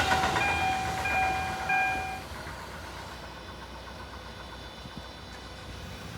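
Japanese level crossing's electronic warning bell sounding a repeating tone while the rumble of a passing Tobu Noda Line train fades away; the bell stops about two seconds in, leaving low steady background noise.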